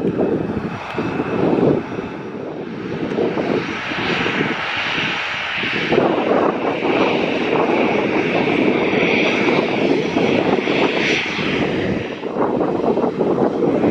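Airplane engines running loud and steady: a rushing rumble, with a high whine joining about four seconds in.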